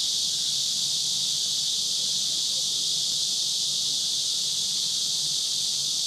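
A steady, high-pitched insect chorus, one even shrill drone that neither breaks nor changes.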